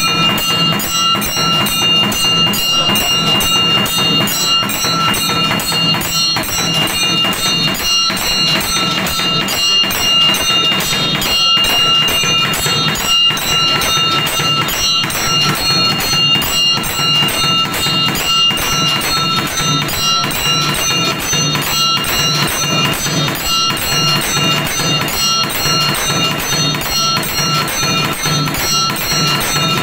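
Temple bells ringing rapidly and without a break during the puja, with clear steady ringing tones over fast, even strikes and a low pulsing beat underneath.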